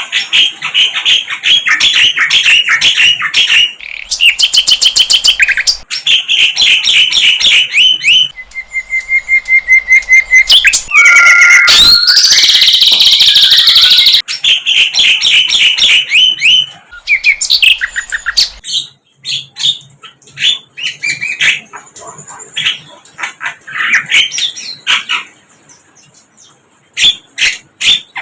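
Sikatan londo flycatcher song: rapid, high, repeated chirps and trills in dense runs that stop and change abruptly several times, with sparser calls near the end.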